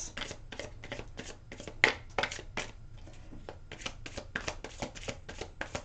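Deck of tarot cards being overhand shuffled by hand: a quick run of soft card slaps at about four a second, with a short pause a little after the middle.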